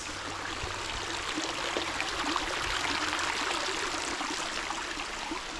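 Mountain stream water flowing, a steady rushing hiss.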